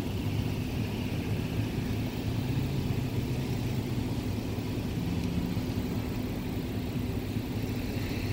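Steady road traffic: cars running on the road, with a constant low engine hum.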